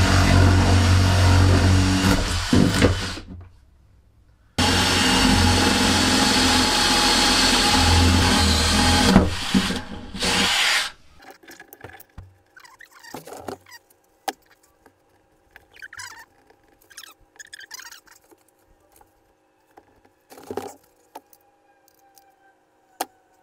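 An electric motor tool running loudly in two long stretches, about three seconds and then about six seconds, each starting and stopping abruptly. Faint clicks and handling sounds follow once it stops.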